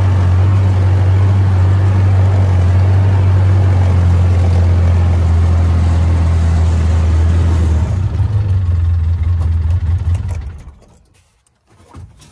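A vehicle engine running with a steady low drone. About eight seconds in it turns unsteady, then it stops near ten seconds, leaving near quiet and then a few short knocks at the end.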